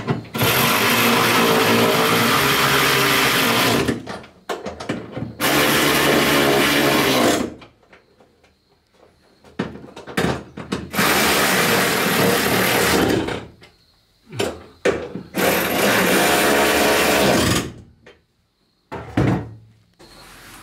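Cordless drill running in four steady bursts of about two to four seconds each, starting and stopping sharply, with short knocks in the gaps between.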